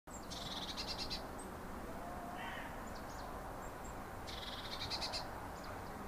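Birds calling: two rapid high trills of under a second each, about four seconds apart, with a few shorter calls between, over faint steady background noise.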